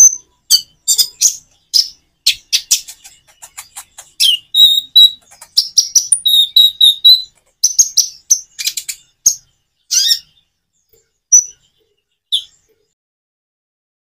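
Konin (kolibri ninja) singing: a fast run of high, sharp chirps and twittering trills for about ten seconds, then two single notes and a pause.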